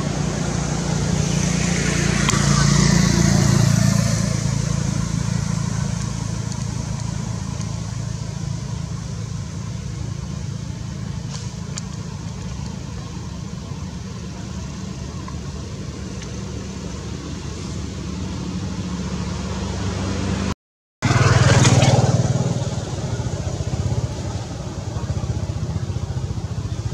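Motor vehicle engines running steadily, with a vehicle passing close by twice: once near the start and once about three-quarters of the way through.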